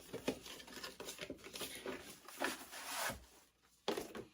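Rustling, crinkling and small tearing sounds of packaging being handled as a cardboard tackle subscription box is opened, with scattered light clicks and a couple of louder crackling bursts.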